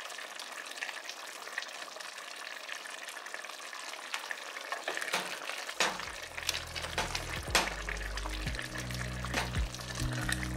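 Pot of chicken stew simmering in its broth, a steady faint bubbling. About halfway through, a silicone spoon stirs the chicken pieces with irregular scraping knocks against the pot, while background music with low steady notes comes in.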